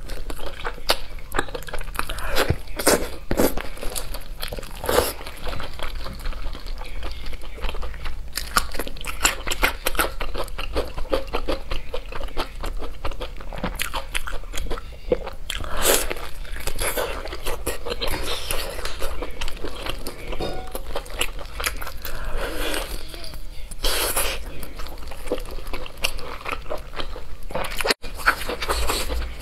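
Close-up eating sounds: biting into and chewing sauce-glazed meat on the bone, a dense, irregular run of bites, chews and sharp mouth clicks.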